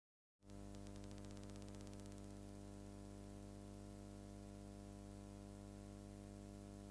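Faint steady electrical hum with hiss, cutting in abruptly from dead silence about half a second in: the noise floor of an old film soundtrack transfer, before any music starts.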